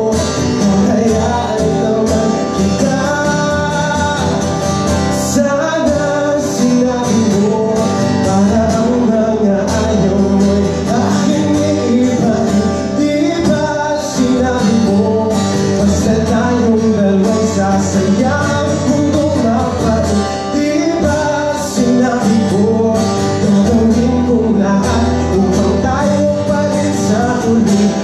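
Live song: a male singer accompanying himself on guitar, amplified through the stage speakers.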